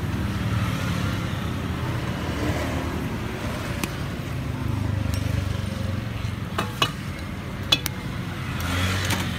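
Metal tongs clicking and clinking against a charcoal grill's wire grate as meat skewers are turned, a few sharp clicks in the second half. Under it runs a steady low rumble of street traffic.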